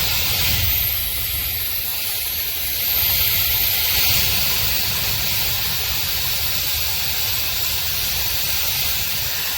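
Shark FlexStyle hair dryer running: a steady rush of blown air with a thin high-pitched motor whine. It drops a little about a second in and comes back up near three seconds.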